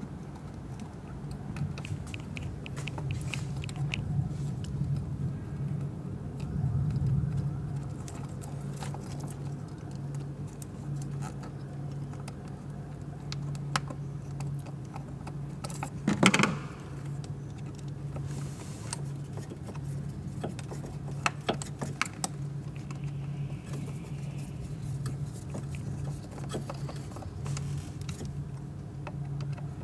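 Small clicks and rattles of plastic connectors, hoses and wiring being handled and refitted in a car's engine bay, over a steady low hum, with one louder knock about 16 seconds in.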